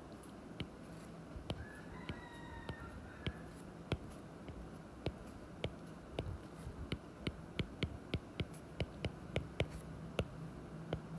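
A stylus tip tapping and clicking on an iPad's glass screen as brackets and plus signs are handwritten: a run of short, sharp clicks at irregular spacing that grow more frequent in the second half, over a low steady hum. A faint, brief high tone sounds about two seconds in.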